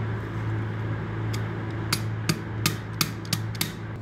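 Ball bearing being tapped down onto the shaft of a paper cup machine's knurling unit: about seven sharp taps, unevenly spaced through the second half, over a steady low hum.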